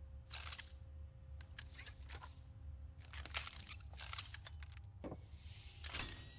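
Aerosol spray-paint can hissing in short bursts of about half a second, several times over, above a steady low hum.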